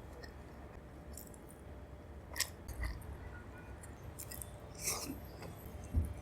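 A person eating: close-up chewing with about half a dozen short, sharp mouth clicks scattered through it, the loudest near the end.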